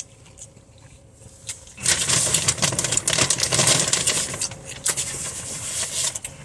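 Loud crackly rustling and clattering handling noise close to the microphone. It starts about two seconds in and eases off near the end.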